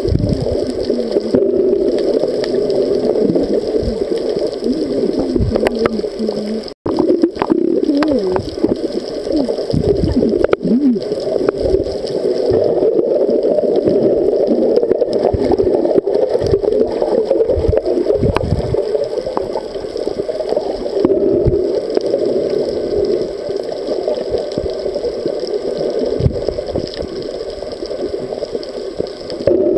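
Muffled underwater water noise picked up by a camera held under the sea: a steady low rush with gurgling and bubbling, a few wavering glides about a third of the way through, and a brief dropout at the same point.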